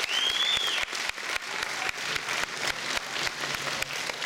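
Audience applauding with dense, irregular clapping, and a short high whistle at the very start.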